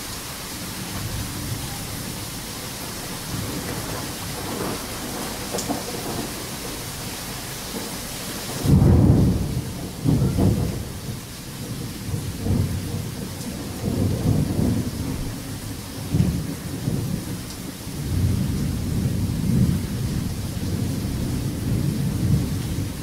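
Heavy rain hissing steadily; a little over a third of the way in a sudden loud thunderclap breaks in, the loudest moment, and thunder keeps rolling in repeated low rumbles through the rest while the rain hiss sounds softer.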